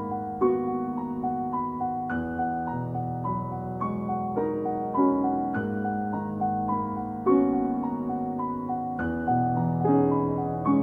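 Piano music: a line of single notes stepping up and down over low held notes, with a fresh chord struck every couple of seconds.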